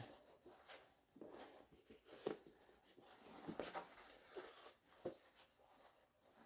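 Faint handling noise: soft rustles and a few light taps as the plastic Quick Clamp ring is worked into the dry suit's rubber wrist cuff.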